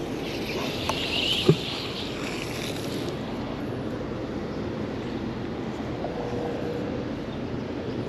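Steady rushing of river water with some wind on the microphone, and one short knock about a second and a half in.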